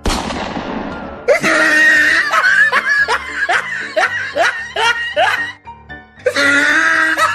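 A balloon bursting with a sharp bang that tails off over about a second, followed by loud laughter in repeated bursts, with a short break near the end, over background music.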